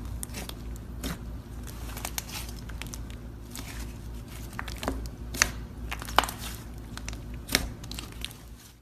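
Slime mixed with clay being squeezed and kneaded by hand, giving irregular crackles and sharp pops, a few of them louder in the second half. It stops just before the end.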